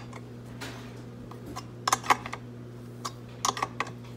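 Sharp metal clinks of a Craftsman open-end wrench working a brass drain fitting on a small air compressor tank as the fitting is tightened: a couple of clicks about two seconds in and three more around three and a half seconds, over a low steady hum.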